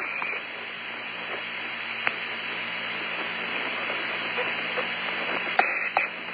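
Open air-to-ground radio channel between transmissions: steady hiss and static with a low hum, a few faint clicks, and a short tone near the end.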